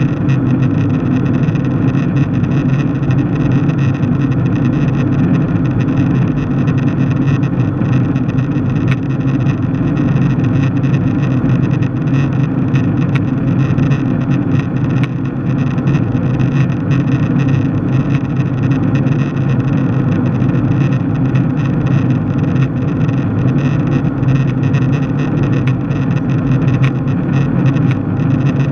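Steady cabin noise of a jet airliner in cruise, heard from a window seat: an even, deep drone of the engines and rushing air that does not change.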